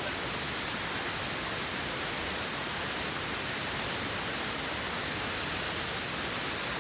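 Steady rush of a waterfall: an even hiss with no breaks or changes.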